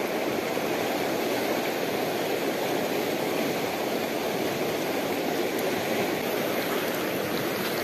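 Steady rush of a fast-flowing river running over rocks and small rapids.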